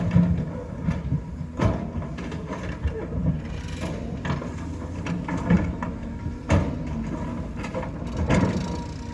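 Diesel engine of a Cat 320 excavator running steadily under load, with repeated sharp metallic clanks and knocks from the machine working.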